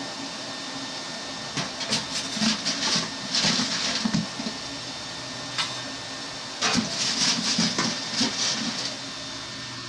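Newly built coal forge being fired, its air blower running with a steady hum, and twice a few seconds of irregular hissing and crackling from the burning coal fire.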